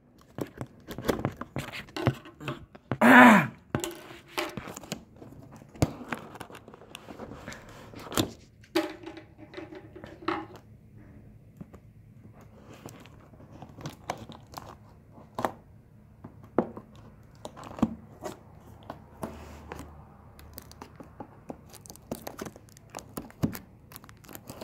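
Cardboard laptop box being worked open by hand: scattered scrapes, taps, rustles and tearing of cardboard and packaging, with one loud burst about three seconds in.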